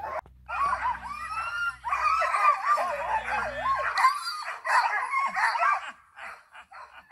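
Excited sled dogs (Alaskan huskies) on their chains barking and yipping together, a dense chorus of wavering cries. It thins to shorter bursts of barking in the second half and scattered ones near the end.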